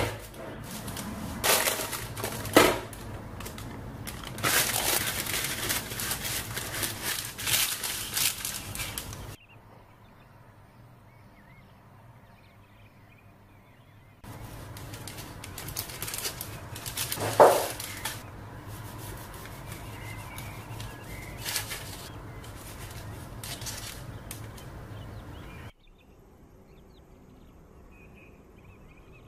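Parchment baking paper crinkling and rustling as it is handled, with sharper crackles. It comes in two long stretches: about nine seconds from the start, and again from about 14 s to about 26 s, with one loud crackle near 17 s.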